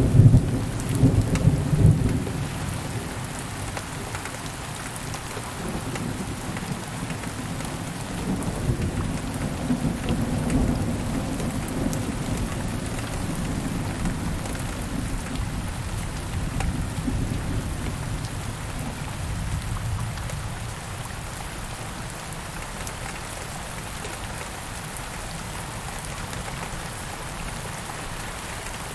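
Steady rain falling, with rolling thunder rumbling loudly in the first couple of seconds and again more softly several times before dying away, leaving only the rain.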